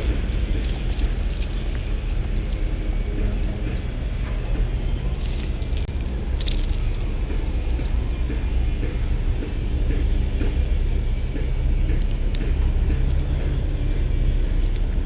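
Steady low rumble of road traffic, with a few brief clicks about five to seven seconds in.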